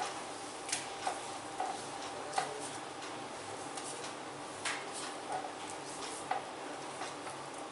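Hands working over skin during an upper-body massage: a handful of light, irregular taps and clicks over a steady background hiss.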